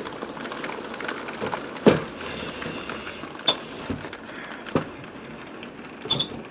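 Heavy rain hissing steadily, with several sharp knocks and clicks from a window being closed, the loudest about two seconds in.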